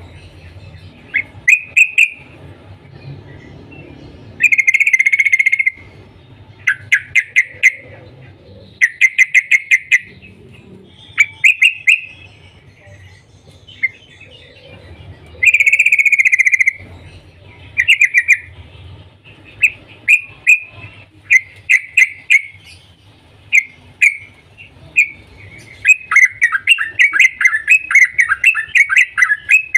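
Yellow-vented bulbul calling: loud clusters of short, sharp chirps, with two longer notes of about a second each, breaking into a fast, dense chatter near the end.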